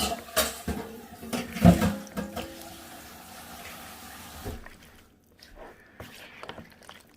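Liquid sloshing and splashing as cut cucumbers, tomatoes and onions are stirred through a watery vinegar marinade, busiest over the first few seconds, then fading to a few soft wet clicks.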